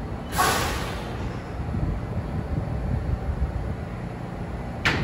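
A New York City subway train standing in the station gives off a steady low rumble. About half a second in there is a short burst of hiss, and a sharp click comes near the end.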